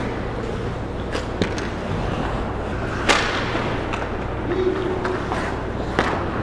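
Ice hockey play on an indoor rink: skates and sticks clicking and scraping on the ice over a steady low arena hum. A sharp crack of stick or puck sounds about three seconds in, and a smaller one near the end.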